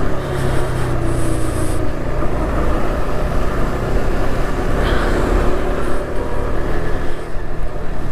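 KTM RC 200's single-cylinder engine running steadily under way, with wind noise rushing over the microphone.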